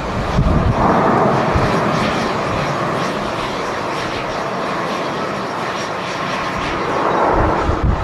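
Boeing 787 jet engines running with a steady noise as the airliner rolls along the runway. Gusts of wind buffet the microphone with low rumbles about a second in and again near the end.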